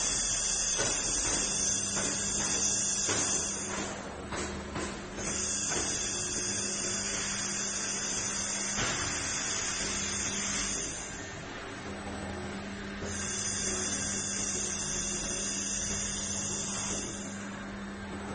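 Robot-arm fiber laser welding head hissing in three stretches of a few seconds each, with short gaps between weld passes, over a steady low hum from the welding equipment.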